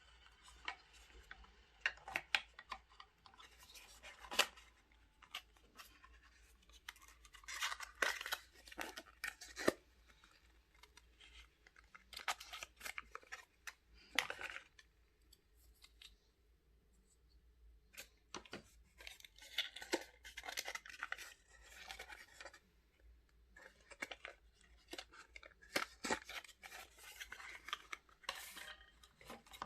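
Product packaging being handled and opened by hand: bursts of rustling and scraping with sharp clicks, coming in clusters every few seconds with short pauses between.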